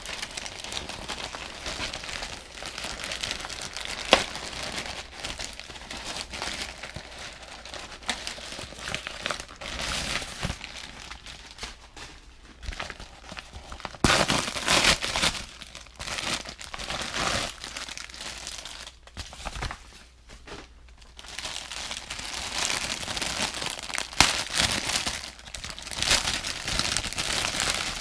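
Packaging crinkling and rustling as a plush toy is unwrapped, in uneven handling bursts with two sharp clicks along the way.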